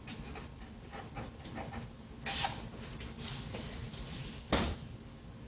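Sharpie marker tip scratching across paper in a string of short strokes as a word is written, then one longer stroke as it is underlined. A short soft knock comes about four and a half seconds in.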